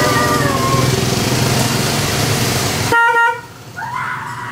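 A steady noisy rush with a low hum, which stops abruptly about three seconds in. An electric vehicle horn then gives one short toot, a steady single-pitched tone lasting under half a second.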